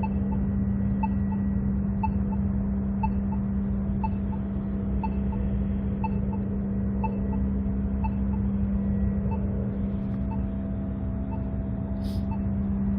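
Accessible pedestrian signal at a crosswalk ticking steadily, a short tick repeating in pairs about once a second, over a steady low hum.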